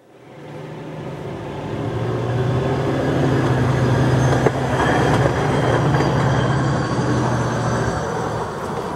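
Ford hi-rail pickup truck rolling along the rails past the camera. The engine and the rail wheels on the track grow from faint to a loud, steady hum as it nears. There is a sharp knock about four and a half seconds in, and the sound eases a little near the end.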